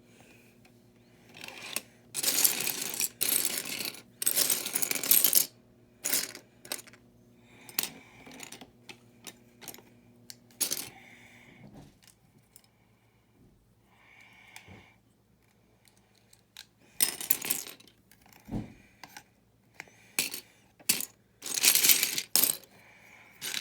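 Loose plastic building bricks clattering as a hand rummages through a pile of parts, in several rattling bursts with scattered single clicks between them.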